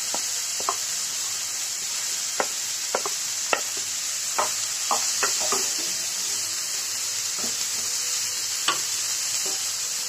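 A spatula stirring cauliflower and mashed peas in a non-stick frying pan, with irregular scrapes and taps against the pan over a steady frying sizzle.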